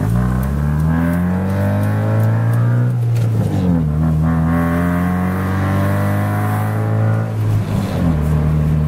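Hyundai Tiburon's engine and loud exhaust heard inside the cabin as the car accelerates: the pitch climbs, falls as it shifts up about three seconds in, climbs again, falls at a second shift near the end, then holds at cruise. The exhaust drones loudly, the sign of an exhaust that still needs a proper muffler.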